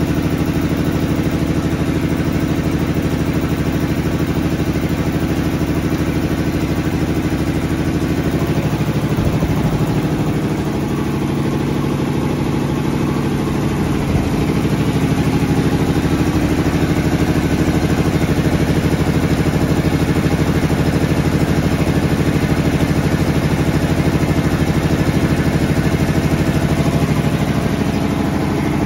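Three-cylinder, belt-driven piston air compressor with a three-phase electric motor, running steadily as it pumps air into its tank and the pressure builds.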